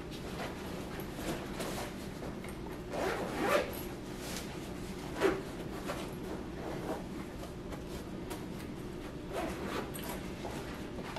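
Housecleaning handling sounds: short rubbing and rustling strokes, as of things being moved and wiped, with a sharp light knock about five seconds in, over a faint steady hum.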